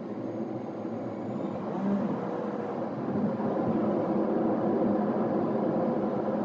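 A car driving, with road and engine noise swelling over the first two seconds as it gets moving, then running steadily.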